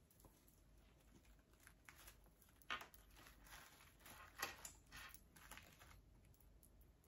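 Faint rustling and soft ticks of hands handling artificial flowers and tucking them into place, with two sharper clicks about three and four and a half seconds in.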